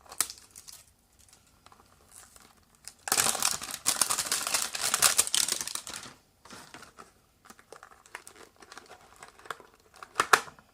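Packaging of a trading-card hanger box being torn and crinkled open by hand. A burst of dense crinkling lasts about three seconds, starting about three seconds in. Light taps and clicks of handling come before and after it, with a couple of sharper clicks near the end.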